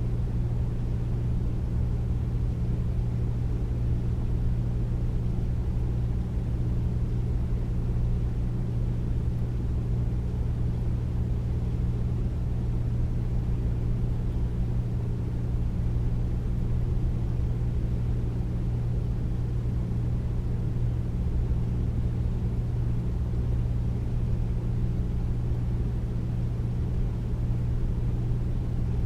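Air conditioner running steadily: a deep, even hum with a low rumble and a soft rush of air, without change.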